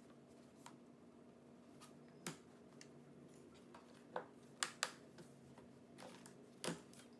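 Light clicks and taps from handling a MacBook Pro in a snap-on hard plastic case as its lid is opened, with a few sharper clicks in the second half, over a faint steady hum.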